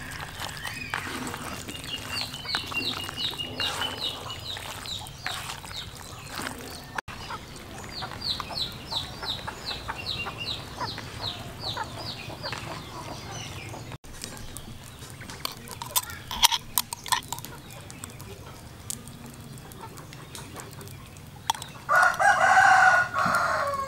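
A rooster crowing once near the end, the loudest sound. Two runs of quick, high, falling bird notes sound in the first half, over soft squelching and clicks of hands mixing raw meat in a plastic basin.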